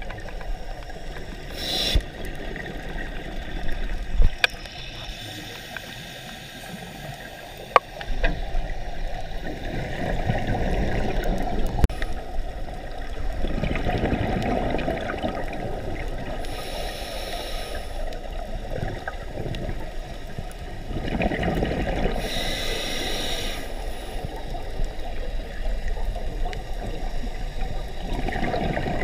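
Scuba regulator breathing heard underwater: the hiss of an inhalation every several seconds and the rumbling bubbles of exhaled air between, with a couple of sharp clicks in the first eight seconds.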